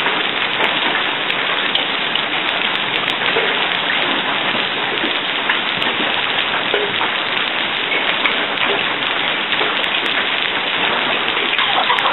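Hail coming down steadily: a dense, even patter of hailstones striking, many small ticks in a constant hiss.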